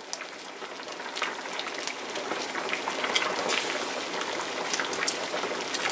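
A saucepan of water at a rolling boil, bubbling steadily, while diced raw potatoes are tipped in from a cutting board with small scattered plops and splashes. The bubbling grows slightly louder through the stretch.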